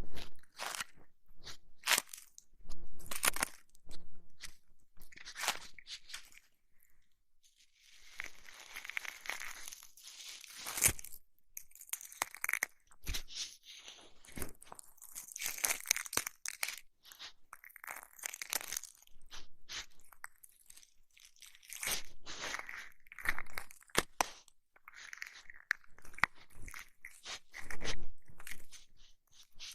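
Close-miked ASMR ear massage and ear cleaning sounds: a run of irregular crackles and clicks, with longer stretches of hissy rubbing.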